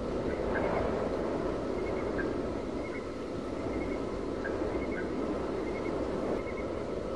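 Steady low background noise, with faint short high chirps recurring every second or two, like night-time outdoor ambience.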